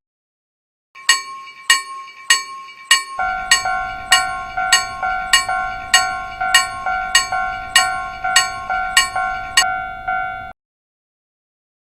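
Japanese railway level-crossing alarm bells ringing "kan-kan". One bell strikes alone at first, then a second, lower-pitched crossing bell joins about three seconds in, so the strikes come twice as fast. Both cut off suddenly near the end.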